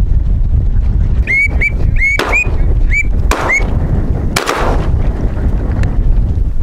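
Wind buffeting the microphone over open water, with a quick run of six short, rising whistled duck calls about a second in. A few brief, sharp rushes of noise break through in the middle.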